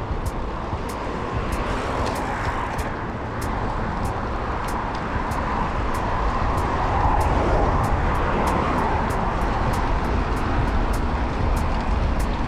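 Road traffic passing on the road beside the bike path, with wind rumbling on the microphone of the moving bicycle. The traffic swells twice, briefly about two seconds in and longer in the middle, over a faint regular high ticking of about three a second.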